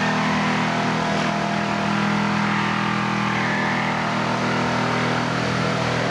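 A steady, low mechanical drone at an even pitch, like a motor running.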